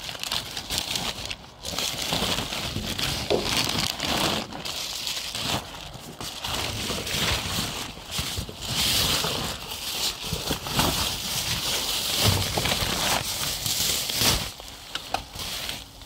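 Plastic bags and packaging crinkling and rustling as hands rummage through rubbish in a dumpster, with a few brief pauses.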